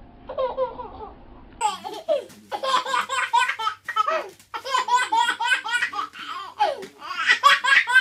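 A baby laughing briefly, then a toddler belly-laughing in rapid, repeated high-pitched bursts, loudest near the end.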